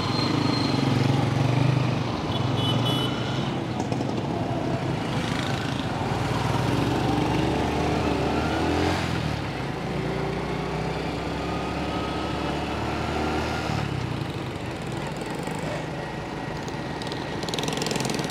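Motorcycle engine running on the move, heard from the rider's seat, amid city traffic noise; the engine pitch rises as it accelerates about halfway through.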